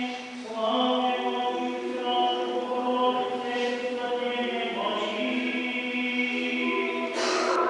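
Choir singing an Orthodox chant in slow, held notes that step from pitch to pitch. A short rush of noise comes near the end.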